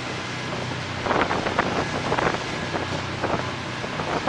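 Wind on the microphone and irregular water splashing over a steady low engine hum, as an Austal 40 m high-speed catamaran ferry passes at speed.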